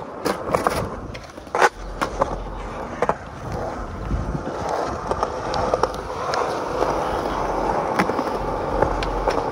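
A skateboard: a few sharp clacks of the board in the first seconds as the rider comes off a concrete bank, the loudest about a second and a half in. Then the wheels roll over rough concrete with a steady rumble and scattered small clicks.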